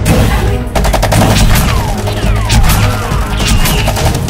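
Rapid bursts of automatic-gunfire sound effects over background music. Whistle-like tones slide down and back up in the middle.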